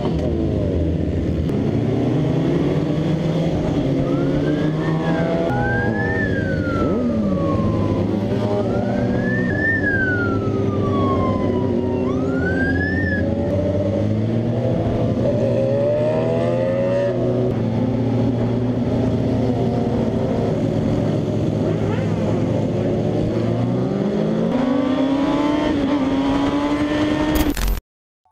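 Vehicle engine running, its pitch rising and falling as it revs, with a siren wailing up and down several times from about four to thirteen seconds in. The sound cuts off suddenly just before the end.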